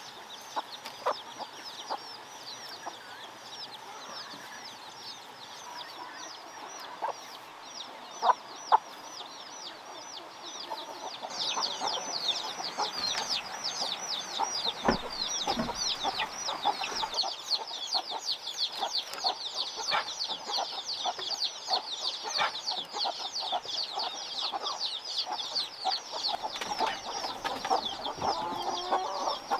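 Chickens clucking, with a few sharp knocks about eight seconds in. From about eleven seconds in, a high, fast trill of quick falling notes joins and stays the loudest sound.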